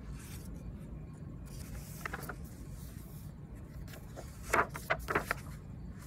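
Paper rustling and scraping as a picture book is handled and its page turned, with a cluster of louder rustles about four and a half seconds in, over a steady low background rumble.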